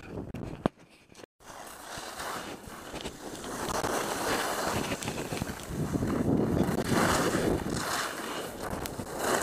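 Skis sliding and scraping over packed snow, with wind rushing over the camera microphone. The sound cuts out briefly about a second in, then builds and swells in waves.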